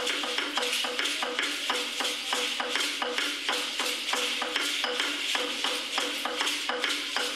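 A drum playing a quick, even beat for Aztec-style dancing, with rattles shaking steadily over it.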